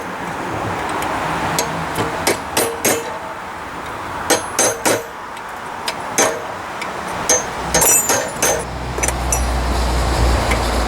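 Irregular hammer blows on the hot steel of a railroad-spike elephant head, tapping detail and texture into the face, each strike ringing briefly, over a steady hiss. A low rumble comes in near the end.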